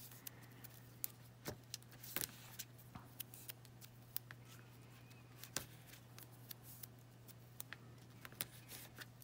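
Faint scattered clicks and rustles of double-sided score tape being pulled off its roll, torn and pressed onto a piece of cardstock, over a steady low hum.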